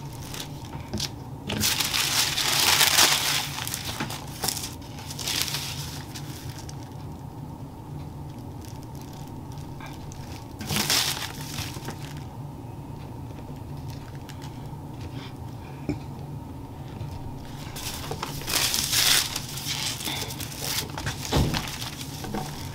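Sheets of tissue-paper sewing pattern and tracing paper rustling and crinkling as they are shifted and lifted, in several bursts: about two seconds in, around eleven seconds, and again near the end, over a steady low room hum.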